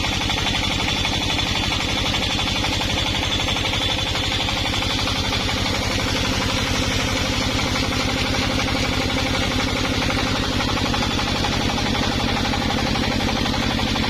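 Small engine running steadily at a constant speed, with a fast, even firing pulse and no change in pitch or load.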